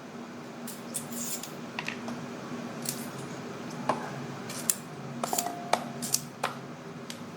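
Knife slicing green beans: about a dozen crisp, irregular cuts and taps of the blade, one of them about halfway through leaving a brief ring.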